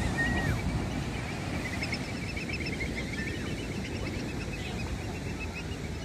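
Gulls calling, a rapid run of short repeated notes with a couple of brief rising-and-falling cries, over a steady rush of surf and wind.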